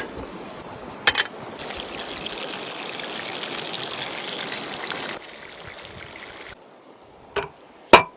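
Steady rushing of flowing water, dropping abruptly in level twice in the second half. Three sharp knocks cut through it: one about a second in, and two close together near the end, the last the loudest.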